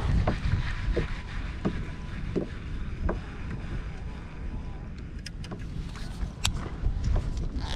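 Wind rumbling on the microphone aboard a fishing kayak, with light knocks and clicks on the boat, four of them evenly spaced a little under a second apart in the first few seconds.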